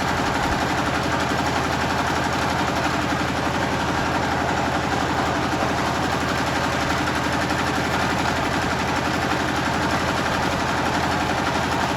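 Generator engine running steadily with a fast, even beat.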